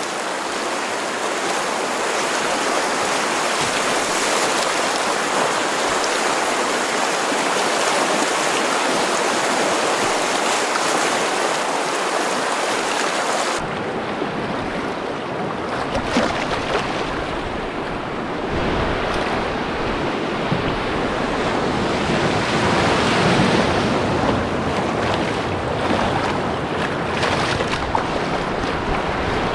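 Steady rushing of river rapids around a canoe, a loud even hiss of whitewater. About 13 seconds in the sound changes suddenly, losing its highs and gaining a low rumble of wind on the microphone.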